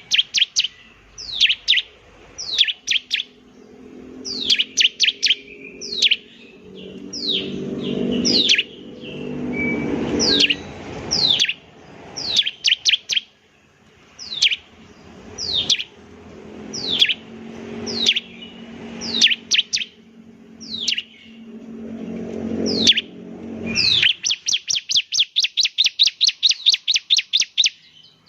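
Bar-winged prinia (ciblek) singing: sharp, high whistled notes that sweep downward, given in quick clusters of one to four, then near the end a fast, even run of about five notes a second. A low rumble swells and fades underneath and cuts off suddenly just before the fast run.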